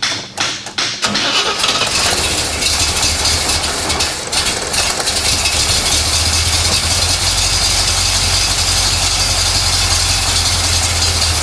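A 1970 Corvette's 350 cubic-inch small-block Chevy V8 cranking on the starter in short even pulses for about a second, then catching and running steadily. It starts now that the distributor has key-on power, with the ignition timing still only roughly set.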